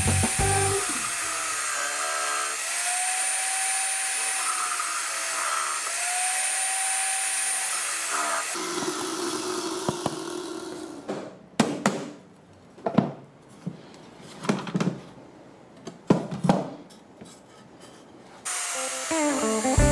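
Benchtop drill press running and boring into a wooden board, its motor whine shifting pitch twice. After about eight seconds it stops, and wooden boards are handled with about half a dozen knocks and rubs.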